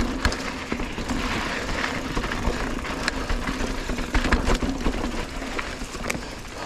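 Mountain bike rolling down a dirt trail: steady tyre noise with chain and bike parts rattling and scattered knocks over bumps.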